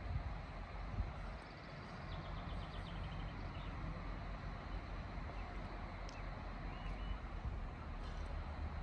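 Steady low rumble and hum around a standing SBB Re 420 electric locomotive, with a soft bump about a second in. A short rattling bird call comes about a second and a half in, and a few high chirps near the end.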